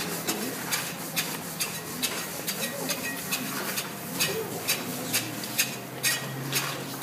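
Irregular scraping and crunching strokes, two or three a second, of people digging into a heap of coarse road salt.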